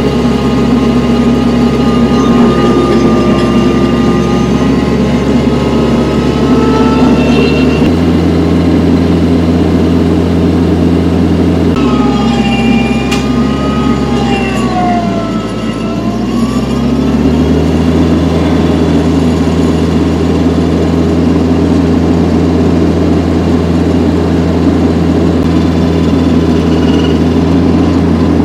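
TYM 474 tractor's diesel engine running under work, its speed stepping up about 8 and 12 seconds in, then sagging briefly around the middle and recovering. A higher whine dips and rises in pitch along with it.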